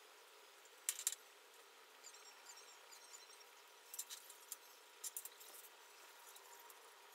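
Small clicks and taps of fingers handling stickers and pressing them onto the back of a smartphone. They come in short clusters about a second in, around four seconds and around five seconds, over faint room tone.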